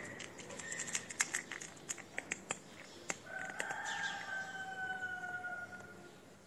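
Cat crunching dry kibble, a quick run of sharp crunches through the first three seconds. Then a long, steady call that falls slightly in pitch starts about three seconds in and lasts over two seconds.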